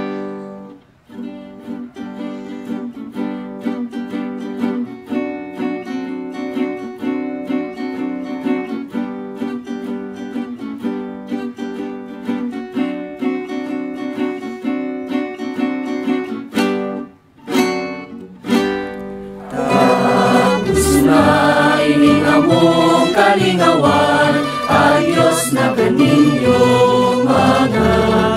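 Pastores Christmas dance music: a strummed string accompaniment keeps a steady beat, breaks off for two short strums about two-thirds of the way through, then a louder section with group singing comes in.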